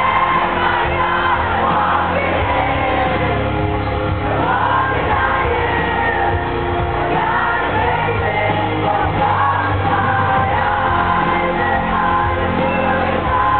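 Symphonic metal band playing live, with a woman singing over electric guitars, heard from within the crowd.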